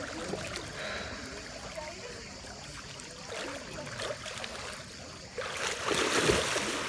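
Swimming-pool water sloshing and lapping around a person wading waist-deep and sweeping her arms through it, then a louder splash about five and a half seconds in as she plunges forward under the surface.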